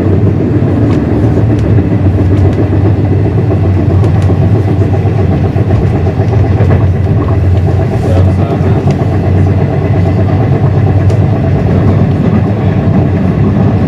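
Passenger train running along the track, heard from inside the passenger cabin: a loud, steady low rumble of wheels and running gear, with occasional light clicks.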